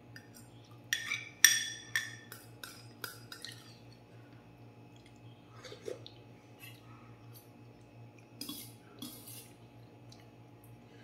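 Metal fork and spoon clinking against a stainless steel bowl, a quick run of sharp clinks that ring briefly about a second in, then a few softer clinks and eating sounds later.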